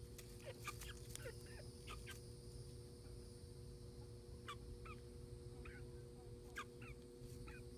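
Chickens giving scattered short, high chirping calls, faint, in two bunches with a lull between.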